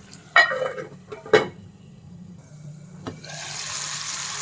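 A couple of sharp knocks, the first with a falling ringing tone, like a metal lid on a kadai. About three seconds in, a steady sizzle of chicken and spice masala frying in oil starts up.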